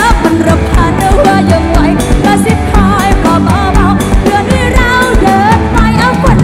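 Live band music played loud through a stage PA system, heard from within the crowd: a steady drum beat under a wavering, vibrato-laden melody line with singing.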